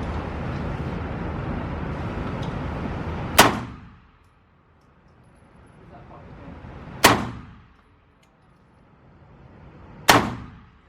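Three single shots from a Glock 19 Gen 5 9mm pistol, fired slowly about three to four seconds apart. A steady rushing noise underlies the first few seconds and drops away after the first shot.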